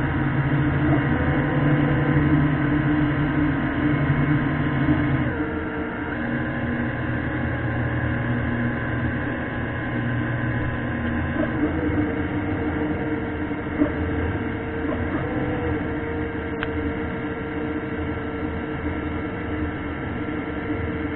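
ROV's electric thrusters humming steadily underwater, several held tones stepping to new pitches a couple of times as the thrust changes, with a small click about two-thirds of the way through.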